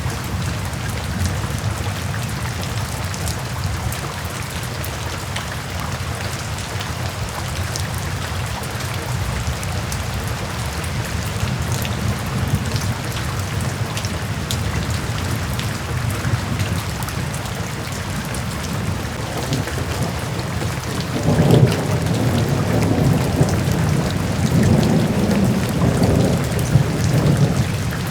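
Steady rain with many separate drops ticking on a surface. About three-quarters of the way through, a low rumble of thunder comes in, louder than the rain, swelling and fading in waves.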